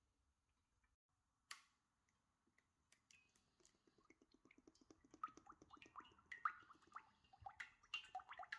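Sunflower oil glugging and gurgling as it is poured from a bottle into a frying pan, a quick run of gurgles starting about three seconds in and growing louder. A single sharp click comes about a second and a half in.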